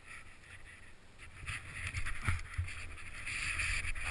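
Wind rushing over the camera's microphone, a low rumble with hiss that builds after about a second, broken by a few short knocks.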